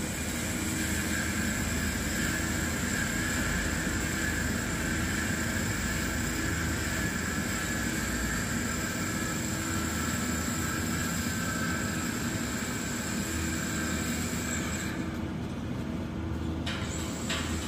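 Steady machine hum and high hiss of welding work on a steel frame, with an engine-driven welder-generator running. Near the end the high hiss cuts out for about two seconds, then comes back as a quick run of crackles.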